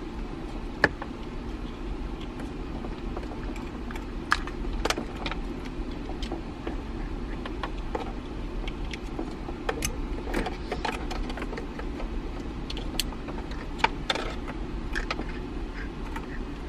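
Plastic wiring-harness connectors and loose wires being handled and plugged together behind a car's dashboard: scattered small clicks and rattles over a steady low hum.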